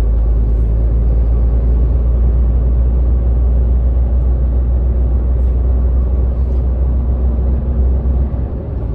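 Scania R450 truck's 13-litre six-cylinder diesel and tyre noise heard inside the cab while cruising, a steady deep drone.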